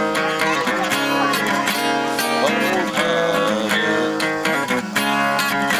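Cutaway acoustic guitar strummed in a steady rhythm, with a man's voice singing along.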